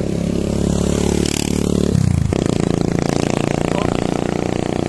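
Motorcycle engine running steadily on the move, with a gear change about two seconds in that drops the engine's pitch.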